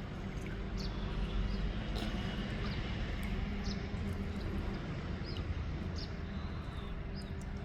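Outdoor ambience: small birds chirping now and then, short high calls scattered through, over a steady low hum.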